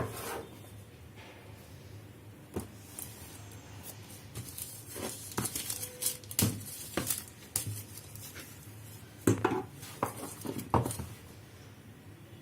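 Hard objects being handled during a smartphone unboxing: scattered sharp clicks, taps and light knocks, coming more thickly in the middle, with the loudest knocks near the end.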